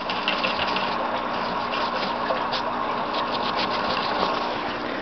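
Ferret digging in loose sand inside a plastic bin: a steady rustling hiss of shifting sand with many small scratchy clicks.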